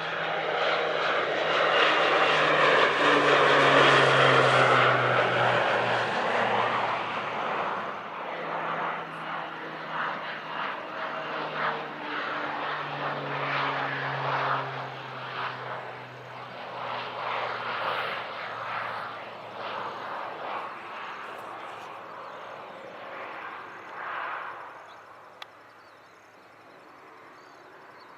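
Airplane engine passing by, loudest about four seconds in, its engine note falling in pitch as it goes past, then fading away over some twenty seconds.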